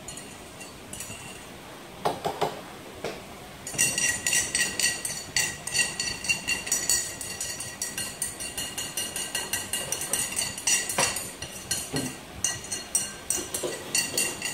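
Light clinking of hard objects: a few knocks, then from about four seconds in a rapid run of ringing clinks.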